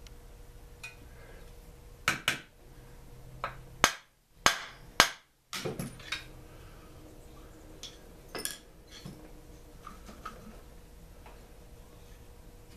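Hand tools and small metal engine parts knocking and clicking on a workbench as a Mantis tiller engine is taken apart: a series of sharp knocks, most of them bunched together in the first half, with one more later.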